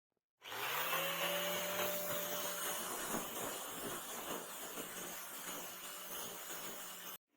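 An electric power tool motor starts up, its pitch rising briefly, then runs steadily with a dense rough noise from the work. It stops abruptly just before the end.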